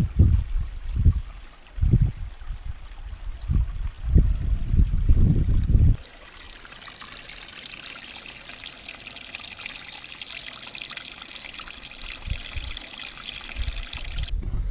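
A thin trickle of water splashing steadily down a mossy rock face into a shallow pool. It starts abruptly about six seconds in and stops suddenly near the end. Before it comes a stretch of low, irregular rumbling thumps on the microphone.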